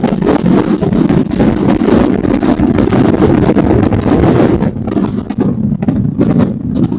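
Motorcycle engine and exhaust running while under way, a loud, rough, steady rumble, with wind on the microphone. About two-thirds of the way in the high hiss drops away while the low rumble carries on.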